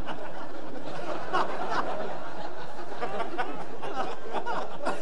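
Audience laughing and chuckling: many scattered voices overlapping, with no one speaking over them.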